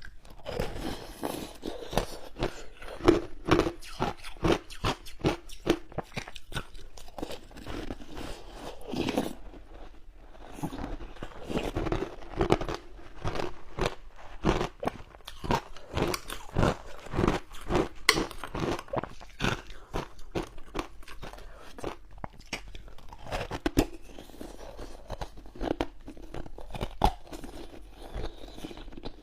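Crunching and chewing of frozen passion fruit ice close to the microphone: a dense run of crisp, irregular cracks from biting and chewing, with a short pause about ten seconds in.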